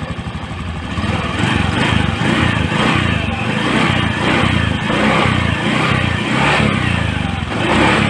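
Freshly overhauled automatic scooter's single-cylinder engine idling, then revved in a series of repeated throttle blips from about a second in.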